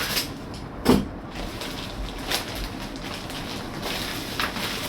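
Rustling and handling noises as an instruction manual is taken out of its packaging, with a few short knocks, the loudest a thump about a second in.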